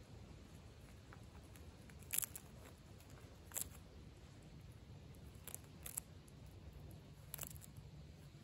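Striped skunk crunching peanuts as it eats from a plate: about five faint, sharp crunches, the loudest about two seconds in, over a low steady rumble.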